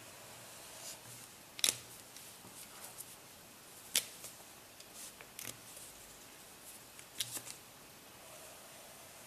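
Felt-tip markers being handled: about four sharp plastic clicks, a few seconds apart, as pens are picked up and put down, with fainter ticks and light scratching of a marker tip on paper between.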